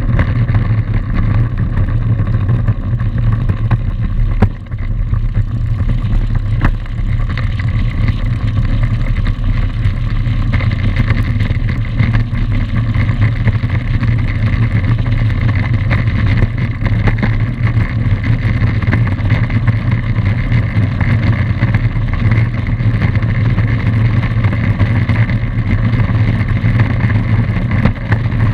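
Single piston engine and propeller of a high-wing light aircraft running steadily as it taxis, a continuous low drone.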